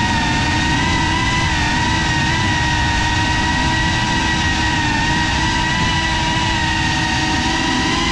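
Brushless motors and propellers of a CineLog35 cinewhoop FPV drone whining steadily in flight, the pitch wavering slightly with throttle, over a low rushing noise.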